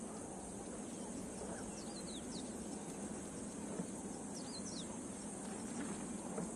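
Steady high-pitched insect drone, with a bird calling twice, each call a quick run of two or three short falling whistles.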